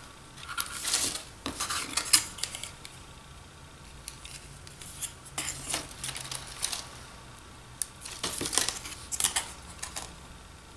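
Light clicks, taps and short rustles of hands working a roll of glue dots and a plastic cup lid, with a pointed pick pressing glue dots onto the lid's edge; the sharpest click comes about two seconds in.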